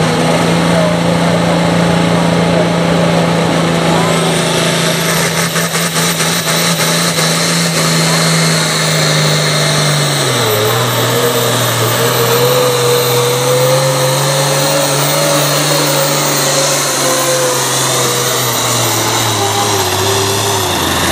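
Diesel pro stock pulling tractor at full throttle, pulling the weight-transfer sled. Its steady engine drone drops in pitch about ten seconds in, pulled down as the sled's load builds. A high whine rises about four seconds in.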